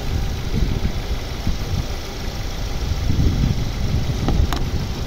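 2023 Genesis G80 petrol engine idling in the open engine bay with its A/C compressor engaged, a steady low rumble; the compressor is pulling the low side down, a sign the mechanic takes for good pumping. One short sharp click about four and a half seconds in.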